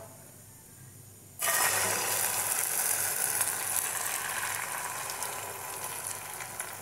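Egg, potato and carrot omelette batter poured into hot olive oil in a non-stick frying pan, sizzling suddenly about a second and a half in, then the sizzle slowly fading.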